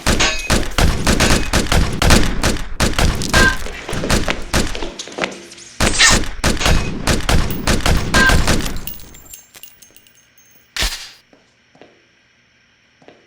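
Rapid gunfire sound effects in two long volleys of overlapping shots, broken by a short pause. After them comes a single loud shot near the end, then a few faint knocks.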